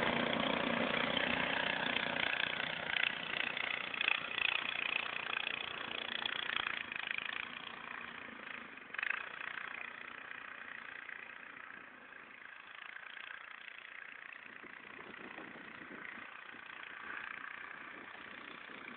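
Small engine of a motorised snow tug ('motosobaka') running steadily, loudest at first and growing fainter over the first dozen seconds as it pulls away through the snow.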